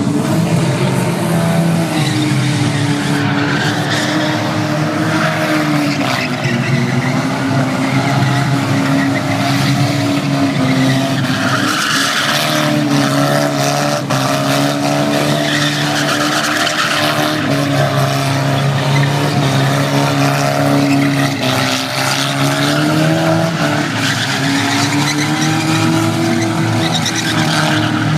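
Car engine held at high revs for a long stretch, its pitch wavering up and down, over a loud screeching noise like spinning tyres.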